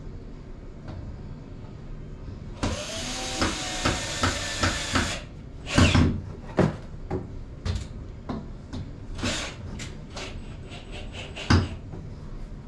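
Handling and fitting the wooden parts of a plywood platform: a dense burst of noise about two and a half seconds long near the start, then a string of separate knocks and clatters against the wood.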